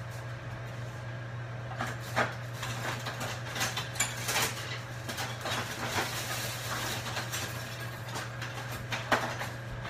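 Rummaging through an overfull kitchen junk drawer for a measuring spoon: scattered clicks and clatters of utensils being pushed about, over a steady low hum.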